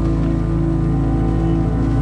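Background music of long held chords over a deep, steady bass note.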